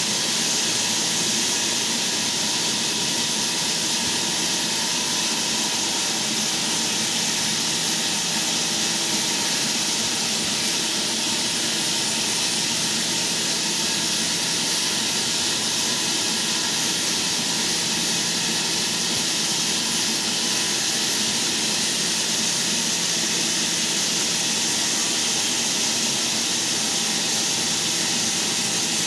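Electric sliding saw running steadily: an even, hissing whine that holds without change, with no strokes or cuts in it.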